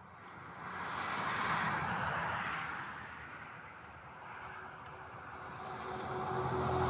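A vehicle passing by: a noise that swells and fades, then a second one building near the end.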